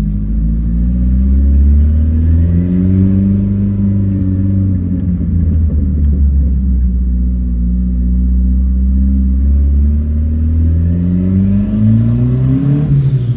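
VW Gol's turbocharged, carbureted AP engine under way, with a deep rumble. The revs climb and drop several times as it pulls through the gears, and a longer climb near the end falls away at a shift.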